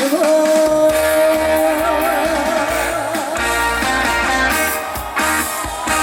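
A woman's voice holds the song's last sung note with vibrato for about two seconds over a live trot band, then the band, led by guitar with bass underneath, plays on through the closing instrumental bars.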